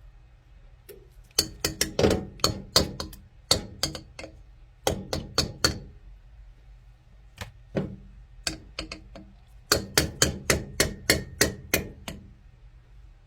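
Sharp knocks in quick runs of several strokes, about three or four a second, with short pauses between the runs.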